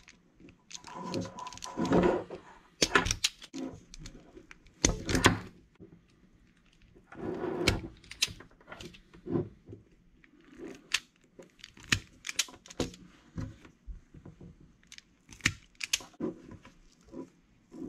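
Self-adjusting wire stripper cutting and stripping the speed controller's power wires: a string of sharp, irregularly spaced snaps and clicks as the jaws clamp and spring back, with handling of the tool and wires in between.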